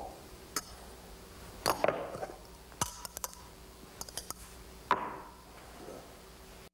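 Metal magician's cups clinking and knocking as they are set down, stacked and nested during a cups-and-balls routine: a dozen or so sharp clicks, a few of them ringing briefly, the clearest about five seconds in. The sound cuts out abruptly just before the end.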